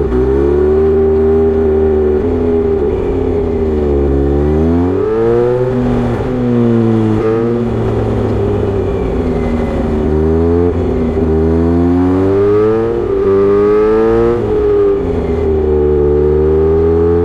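Kawasaki Z900RS inline-four engine through a Misty Kintaro short aftermarket muffler, ridden under throttle. Its pitch rises and falls repeatedly, with several sudden drops as gears change.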